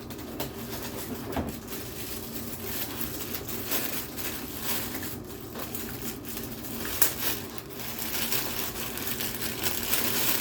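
Packaging rustling and crinkling irregularly while an amplifier is lifted out of its box, with a sharper crackle about seven seconds in, over a steady low hum.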